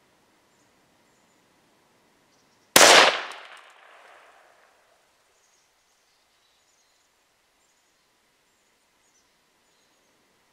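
A single shot from a .17 HMR rifle: one sharp crack about three seconds in, trailing off over about a second and a half.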